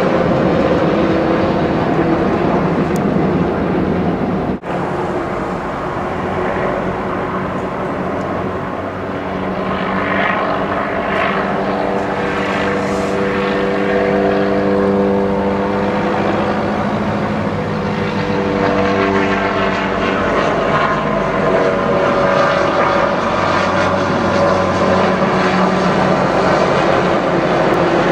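Low-flying military helicopters overhead: loud, continuous rotor and engine noise with a steady hum of several pitched tones that swells in the middle and eases off again. There is a momentary drop-out about four and a half seconds in.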